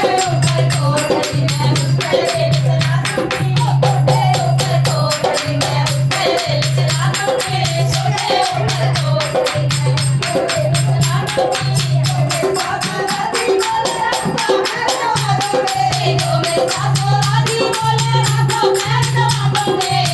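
Women's voices singing a dehati folk dance song to a dholak, with fast, even jingling percussion keeping the beat.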